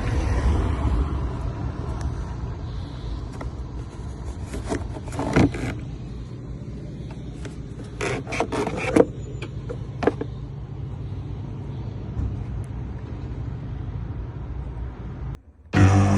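Scraping and clicking of plastic parts being handled, as of a VW air filter housing and filter being worked on, over a steady low hum. Music starts near the end.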